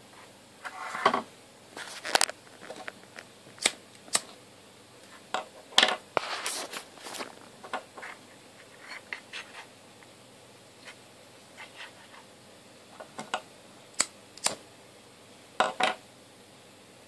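Irregular scratching, rustling and clicking from a cotton pad soaked in vegetable oil being pulled apart and pressed into a small metal tin, in short separate bursts.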